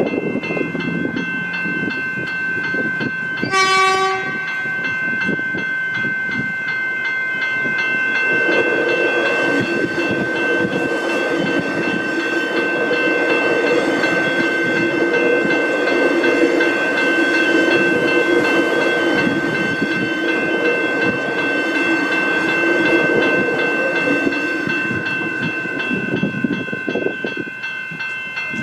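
Level crossing warning bells ringing steadily, with one short train horn blast about four seconds in. A suburban electric train then rumbles through the crossing for most of the remaining time, and the bells stop near the end.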